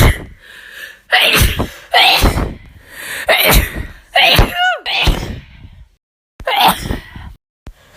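A woman sneezing over and over, about seven separate sneezes roughly a second apart, cut together from separate recordings with short dead-silent gaps at some cuts. One sneeze near the middle ends in a high voiced squeak that drops in pitch.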